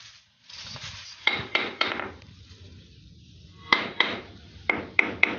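Sharp knocks on a rusty metal frame, each with a short metallic ring. Three come in quick succession about a second in, then five more in the second half.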